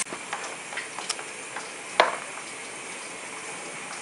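Skateboard on a concrete floor: a few light clicks and one sharp clack about two seconds in, over a steady low hiss.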